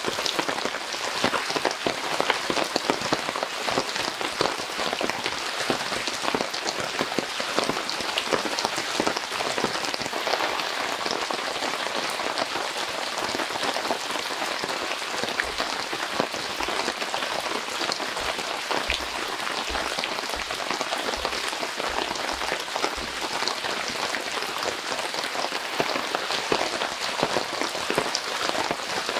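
Heavy rain falling steadily, with many separate drops striking a surface.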